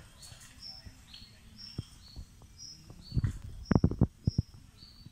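High-pitched animal chirping: a short two-note call that alternates between two pitches, repeated about twice a second. A quick cluster of knocks comes about three seconds in and is the loudest sound.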